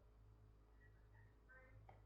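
Near silence: room tone with a steady faint low hum and a few barely audible ticks.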